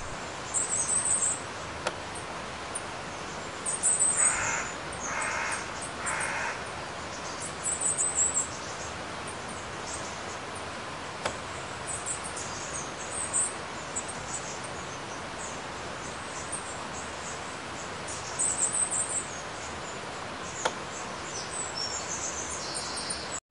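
A river rushing over rocks, a steady hiss of running water. Three harsh bird calls come about four to six seconds in, and small birds chirp high and briefly throughout.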